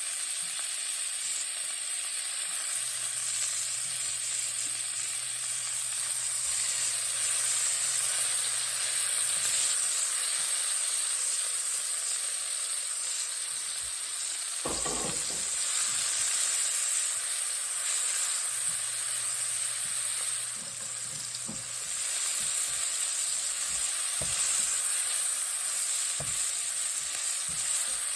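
Garlic, celery and onions stir-frying in hot oil in a pan, with a steady sizzle. There is a single low knock about halfway through.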